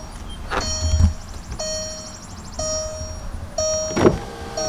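2005 VW Beetle's warning chime sounding, one short tone about once a second, as the key goes into the ignition. Two sharp knocks come in under it, the louder about four seconds in.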